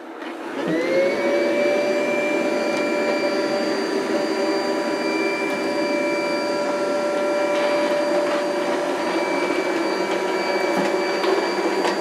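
CleanMate QQ-2 robot vacuum starting up: its motors whine up to speed within about a second, then run steadily with a fan hum and a high whine while it drives about.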